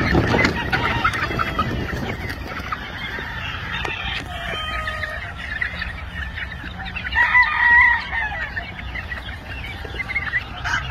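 A flock of young gamefowl chicks and stags peeping and clucking, with one short, louder crow from a young cockerel about seven seconds in.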